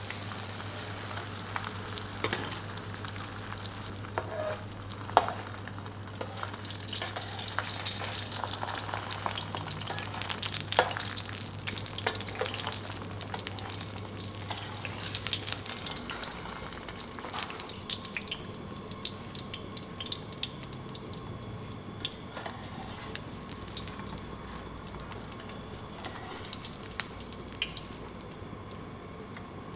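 Food sizzling and crackling in hot fat, with scattered sharp clicks and knocks from utensils. A low steady hum underneath stops about halfway through.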